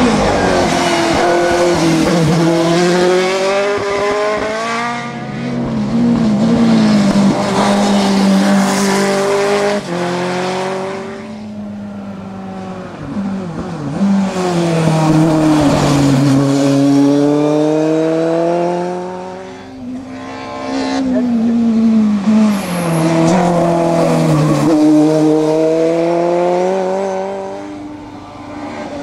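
Open-wheel single-seater race car engines revving hard as the cars pass in turn, each one's pitch climbing, dropping back at an upshift and climbing again, with some tyre squeal.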